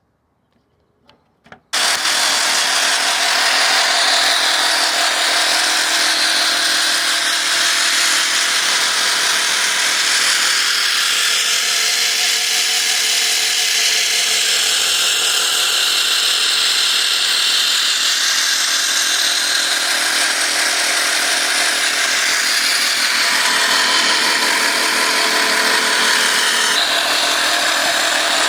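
Electric jigsaw, converted into a makeshift band saw, starting up abruptly after a few faint clicks and then running steadily while sawing wood.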